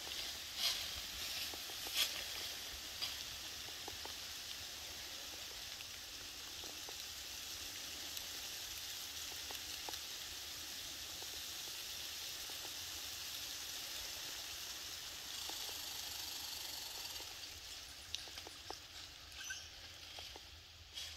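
Faint steady hiss, with a few sharp ticks in the first three seconds and scattered small rustles near the end.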